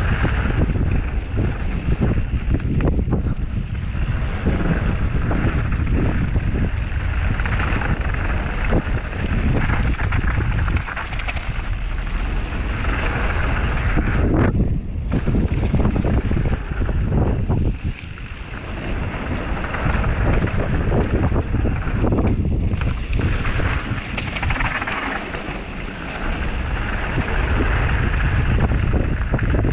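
Wind buffeting the microphone on a fast mountain-bike descent, over the hiss and crunch of tyres on a dirt and gravel trail and knocks and rattles as the bike runs over bumps. It dips briefly a few times, around a third and halfway through, then picks up again.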